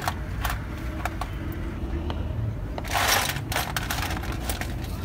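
Small metal parts of a truck gearbox clinking and tapping as they are fitted by hand, with a brief louder scrape about three seconds in, over a steady low rumble.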